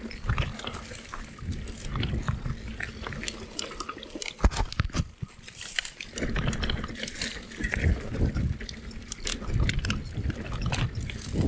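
Mountain bike riding down a rough trail: tyres rolling over stones and the bike clattering and rattling under a steady low rumble, with one hard knock about four and a half seconds in.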